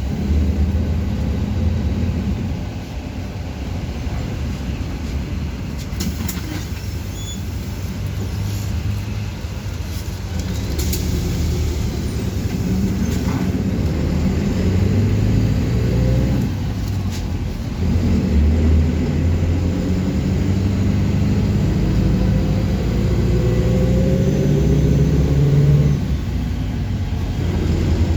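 City bus running along its route, heard from on board: a steady low engine and road rumble, with the engine note rising a few times as it picks up speed. A few sharp knocks or rattles come through.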